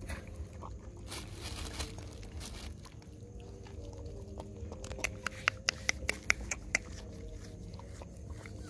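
A dog and puppies eating rice from a ceramic plate: wet chewing and lapping, with a run of sharp clicks from about five to seven seconds in.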